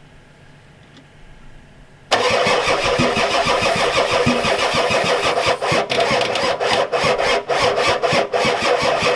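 Starter cranking the 1993 Ford F-250's 7.3L IDI V8 diesel, starting suddenly about two seconds in with a fast, even pulsing as the engine turns over without catching. The hard start is blamed by the owner on a weak injection pump not getting fuel to the new injectors.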